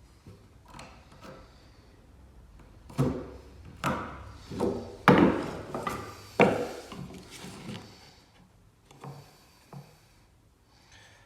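Pieces of pine floorboard knocking and scraping against each other and the floor as they are handled and set in place: a run of about five loud wooden knocks in the middle, with softer knocks before and after.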